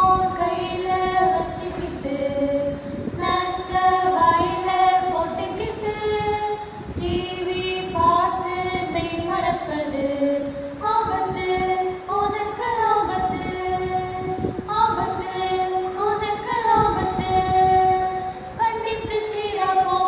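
A group of children singing an action song together, a steady melody of held notes moving step by step.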